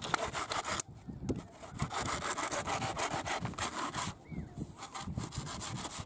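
A long blade sawing back and forth through a fresh, fibrous banana tree trunk: a rapid run of rasping strokes, with brief pauses about a second in and again just past four seconds.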